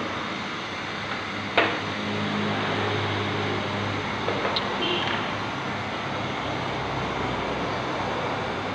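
Steady mechanical running noise, with a sharp click about a second and a half in and a few light taps near the middle.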